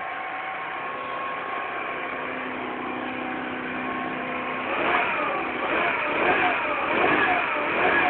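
Motobi Rocky scooter engine, fitted with a Malossi cylinder head, idling steadily. About halfway through, the throttle is blipped again and again, so the engine note rises and falls in quick succession.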